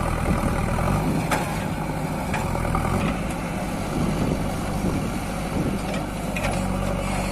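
JCB 3DX backhoe loader's diesel engine running steadily, with a few sharp clanks scattered through.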